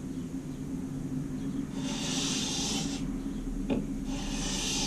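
Chisel in a roller honing guide pushed across a sharpening stone: two scraping strokes of about a second each, a couple of seconds apart, with a light knock between them.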